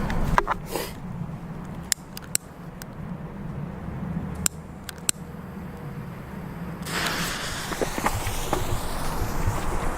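A few sharp clicks and crackles, then about seven seconds in a Colour Flower firework ignites with a sudden, steady hiss of spraying sparks that has a slowly sliding pitch running through it.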